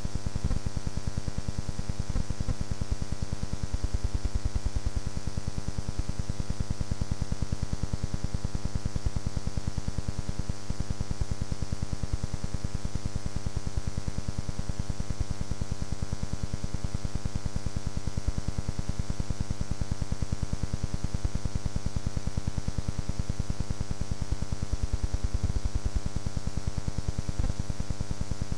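A steady, unchanging electrical buzz and hum on the recording, with a few faint clicks.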